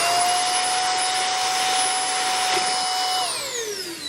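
Easy Home cordless cyclonic stick vacuum running with a steady high motor whine and rushing air. About three seconds in it is switched off, and the whine falls away as the motor spins down.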